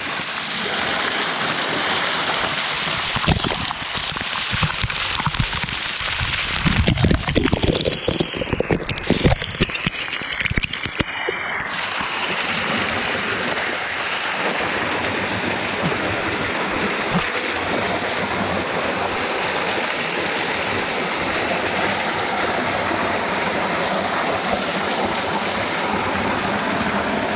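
Steady rush of water spilling off a rock ledge into a shallow rocky stream, close to the camera. From about seven to eleven seconds in, irregular knocks and splashes sound muffled, then the even rush returns.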